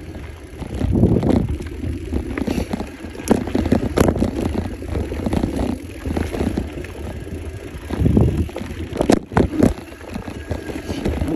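Mountain bike descending a dirt trail: tyres rumbling over the dirt and the bike rattling, with several sharp knocks from bumps, a cluster of them about nine seconds in.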